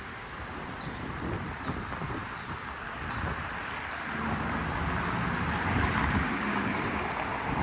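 Outdoor street ambience: wind buffeting the microphone over traffic noise, with a vehicle passing that swells about halfway through. A faint high chirp repeats about every two-thirds of a second in the first half.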